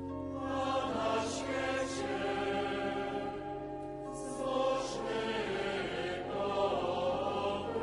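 Choir singing a slow, chant-like liturgical hymn with long held notes.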